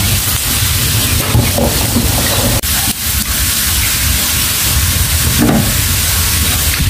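Steady hum of running fish-pond machinery with a loud hiss over it, broken by a brief dip about two and a half seconds in.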